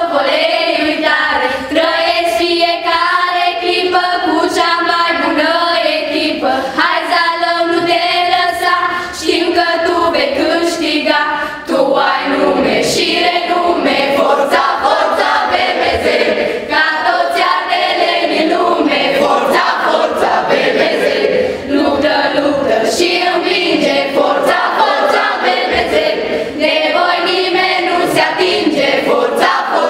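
A group of children, mostly girls' voices, singing together unaccompanied.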